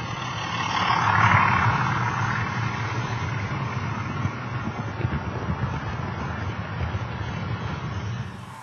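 OO gauge model freight train running on the layout: a steady low motor hum with the rumble and rattle of wheels on track, swelling about a second in as the train passes close. The sound drops away near the end.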